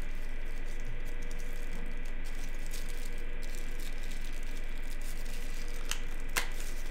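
Plastic and paper wrapping crinkling softly as a tablet charger is unwrapped by hand, with two sharp clicks about six seconds in. A steady low electrical hum runs underneath.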